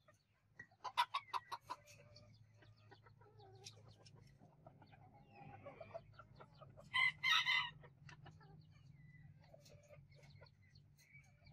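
Bantam chickens clucking: a quick run of about seven clucks a second in, then one short, loud call about seven seconds in.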